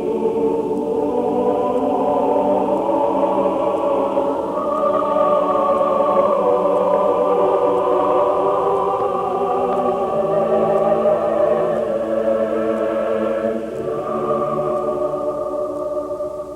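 Background music of slow, sustained chords that change every few seconds, with no speech.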